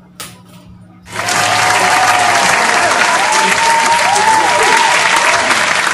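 Crowd applause and cheering with whistles, starting suddenly about a second in and loud throughout. Its abrupt start and cut-off mark it as an edited-in applause sound effect. Just before it, a jump rope slaps the floor once.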